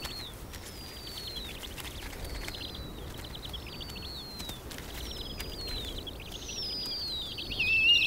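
Snowy owl owlets begging at the nest while being fed: a series of high, thin descending whistles, each trailing off into a rasp, about one a second. The calls grow louder near the end, where a second, lower wavering call joins in.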